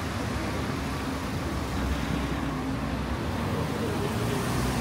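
Steady city street traffic noise: vehicles running by with a low rumble under a continuous wash of road noise.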